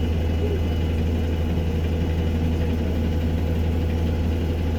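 ADL Enviro200 MMC bus engine running at a steady low drone, heard on board, with a faint thin high whine above it.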